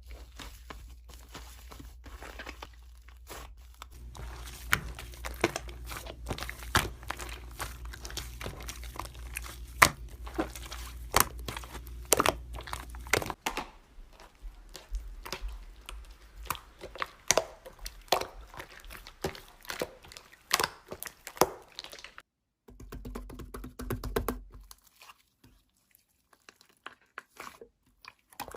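Slime being handled: irregular sticky clicks, pops and crackles as it is pressed, stretched and folded.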